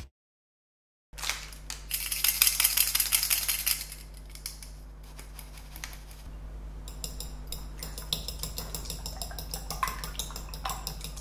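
A second of silence, then flour being sifted through a metal sieve, a dense rapid rattling. Later a fork beats egg yolks in a glass bowl, with quick light clicks against the glass.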